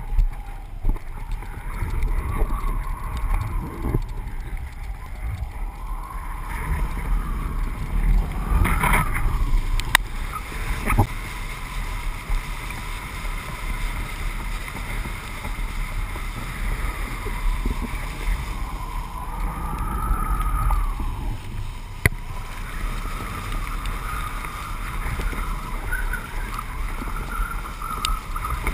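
Wind buffeting and rushing over a line-mounted action camera while a kiteboard rides across the water, with water hiss and splashing from the board. A faint, wavering whistle runs through it, and a few sharp clicks and knocks come now and then.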